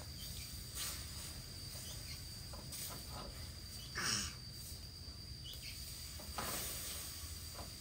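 Spatula scraping and stirring egg in a steel wok: several short scrapes, the loudest about four seconds in, over a faint steady high whine.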